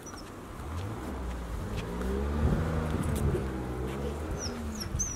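A motor vehicle's engine passing on the road. It grows louder over the first two and a half seconds, and its pitch rises and falls. A few short, high bird chirps come near the end.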